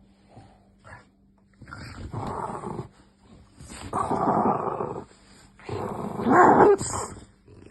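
French bulldog growling in three drawn-out bouts, the last one the loudest.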